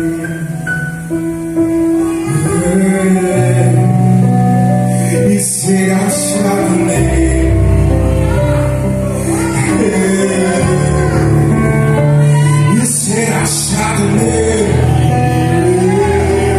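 A slow song: a voice singing long held notes over sustained instrumental accompaniment, with a deep bass line coming in about seven seconds in.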